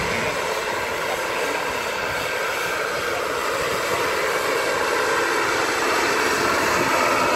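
A helicopter flying low and climbing away, a steady engine and rotor sound with several high tones held throughout.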